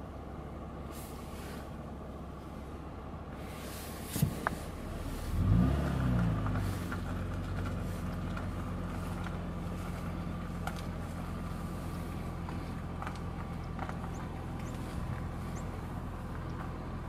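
A motor vehicle's engine slowing, its pitch dropping for about a second, then idling steadily with a low hum. Two sharp knocks come just before it.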